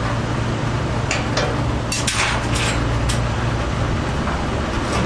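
Diesel engine running steadily at a constant speed, with a few sharp clicks and knocks between about one and three seconds in.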